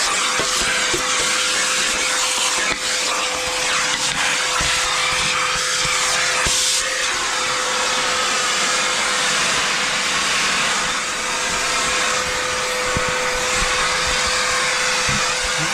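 Milwaukee M18 FUEL 3-in-1 backpack vacuum's brushless motor running steadily: a constant rush of air with a steady mid-pitched whine.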